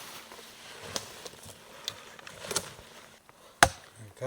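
Faint rustling and scattered small clicks, then one loud, sharp knock near the end.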